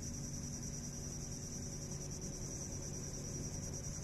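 Insects chirping in a steady, unbroken high-pitched drone, with a faint low hum beneath.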